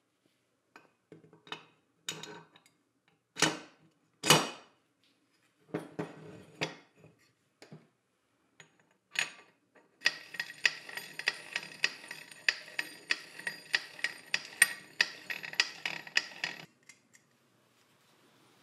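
Metal parts being worked by hand: scattered clinks and knocks, then a steady run of metallic taps, about three a second and ringing, that stops suddenly near the end.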